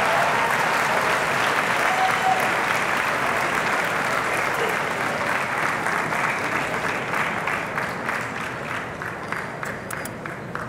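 Audience applauding, slowly dying away; near the end single claps stand out.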